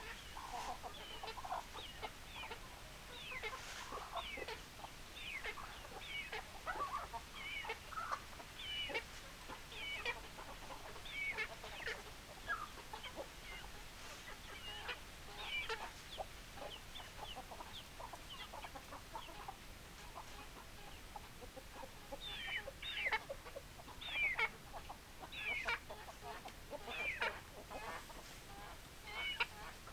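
A flock of chickens clucking and calling, with many short, high calls overlapping throughout. The calls get louder and denser about three-quarters of the way through.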